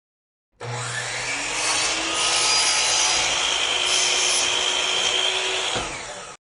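Large 36-inch resaw band saw, converted to a 3 hp single-phase motor, cutting through wood: a steady rasping saw noise with a faint whine, starting about half a second in and cutting off abruptly near the end.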